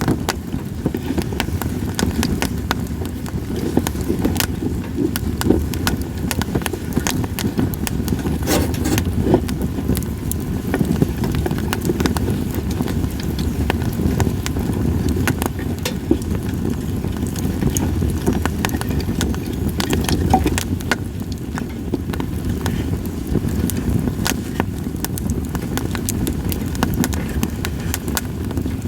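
Split sawtooth oak (kunugi) firewood burning in a campfire, crackling and popping irregularly with sharp snaps, a few louder ones scattered through, over a steady low rumble.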